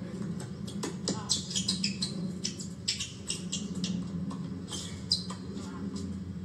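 Tennis rally on an outdoor hard court: several sharp racket-on-ball hits, the loudest about five seconds in, among many short high-pitched squeaks of sneakers on the court surface.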